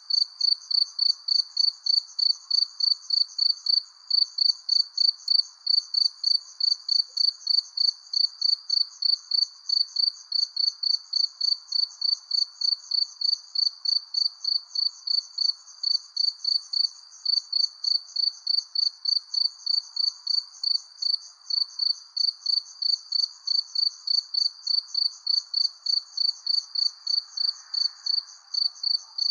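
Cricket chirping steadily at night, about three even chirps a second, over a faint steady background hiss.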